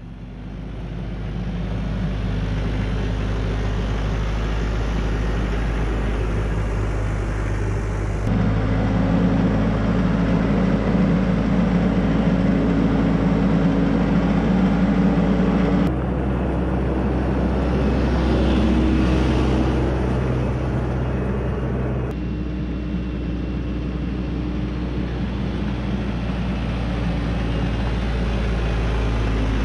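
TYM 574 Hydro C diesel tractor engine running steadily under way as the tractor drives. Its tone and loudness change abruptly three times.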